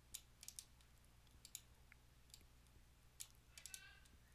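Faint computer mouse clicks, a string of short irregular clicks as a right-click menu is opened and items are chosen, over a low steady hum.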